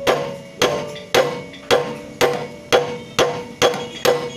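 Hammer blows on the steel balancer-shaft (weight) gear of a Chinese diesel power tiller engine, a steady run of strikes about two a second, each ringing metallically.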